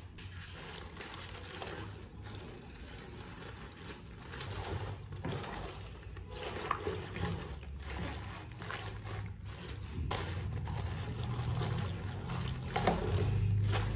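Napa cabbage leaves being pressed down into salt water and turned over in a stainless-steel sink while being brined for kimchi: water sloshing and trickling with the rustle and squeak of wet leaves. It grows louder in the last few seconds.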